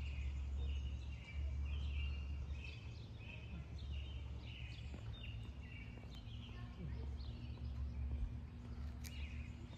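Songbirds chirping in a run of short repeated phrases over a steady low rumble, with a faint steady hum joining about halfway through.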